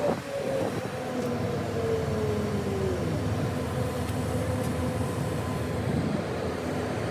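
Train running at a station platform: a whine falls slowly in pitch over the first three seconds, then settles into a steady hum.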